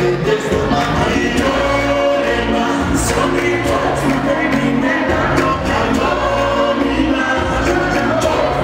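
Loud live music with several voices singing together into microphones over a heavy bass.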